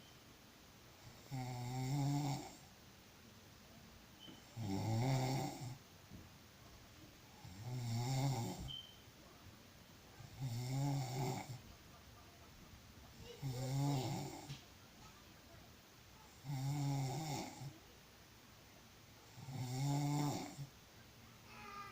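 A person snoring: seven low, pitched snores, each about a second long, at an even pace of about one every three seconds.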